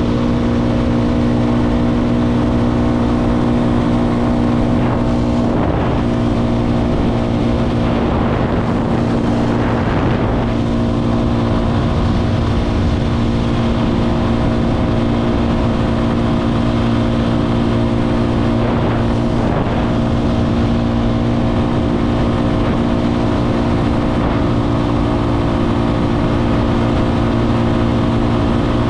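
Motorcycle engine running at a steady cruising speed, its note holding even apart from a few brief wavers.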